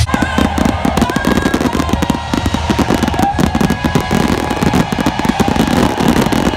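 Fireworks display: a dense, rapid barrage of crackling pops and bangs.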